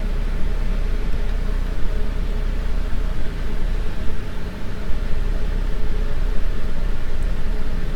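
Steady background noise: a strong low hum with an even hiss above it, unbroken and without distinct events, as picked up by a desk microphone during a screen recording.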